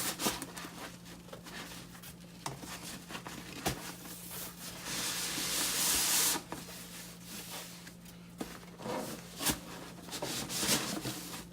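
Fabric storage bins being handled: fabric rustling and rubbing with scattered light knocks, and a longer rubbing hiss lasting about a second and a half around the middle. A faint steady low hum sits underneath.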